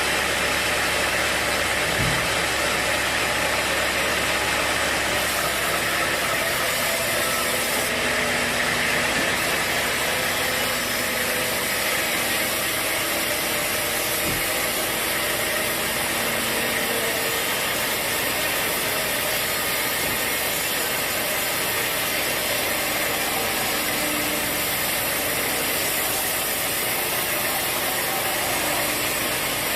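Sawmill machinery running with a steady mechanical drone, with a couple of faint low thumps.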